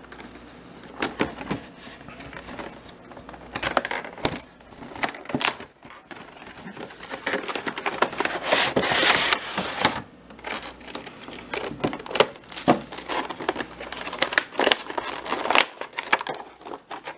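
Cardboard card box and its plastic wrapping being handled and opened: crinkling, short clicks and scrapes. A longer, denser rustling stretch comes about eight seconds in and lasts a couple of seconds.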